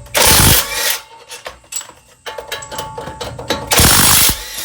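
Power tool, an impact wrench, running on the wheel hub's mounting bolts to break them loose: two bursts of about half a second each, one just after the start and one near the end, with light clicks and rattles between.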